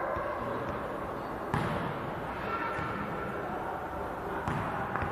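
Basketball taking two sharp knocks about three seconds apart during a free throw, over a background of spectators' chatter.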